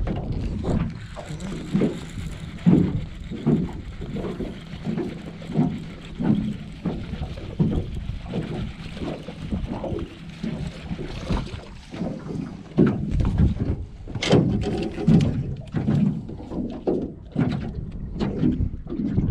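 Small waves slapping against the hull of a flat-bottomed jon boat in a light chop, soft knocks every half second to a second over wind on the microphone. A few sharper slaps come about two-thirds of the way through.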